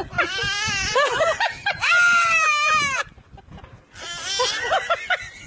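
An animal's high-pitched squealing cries in two runs, with a short pause a little past the middle.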